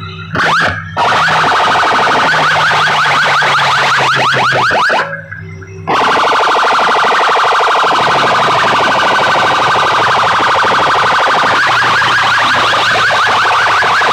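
Stacked horn loudspeakers of a DJ sound rig blasting an electronic siren tone at full volume: a rapid train of short rising sweeps, heavily distorted. It comes in a few short bursts at first, then plays continuously, with a brief drop about five seconds in.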